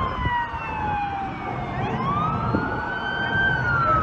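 Police car siren on a slow wail: the pitch slides down, climbs back up about halfway through, and starts to fall again near the end, over a low rumble of street traffic.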